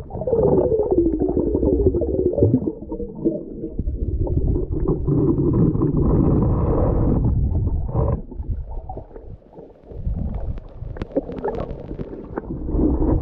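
Muffled underwater rumbling and gurgling, as heard through an action camera's waterproof housing, with scattered clicks and knocks.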